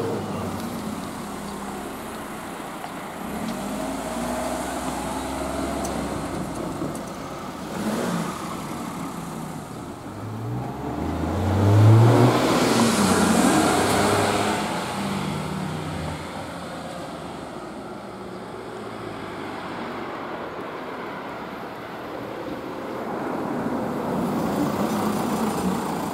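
Road traffic, with cars driving past. The loudest passes close about twelve seconds in, its engine note rising and then falling as it goes by.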